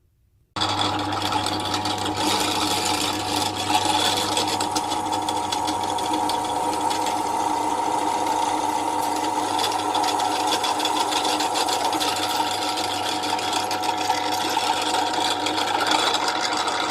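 Titan TTB541DBT pillar drill running steadily, its motor humming while a 5 mm Dormer twist drill bores a hole through 4 mm mild steel without strain. The sound starts abruptly about half a second in.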